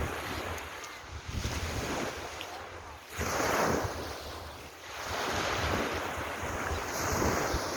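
Ocean surf breaking and washing up the shore in swells, one surging in about three seconds in and another about five seconds in, with wind buffeting the microphone.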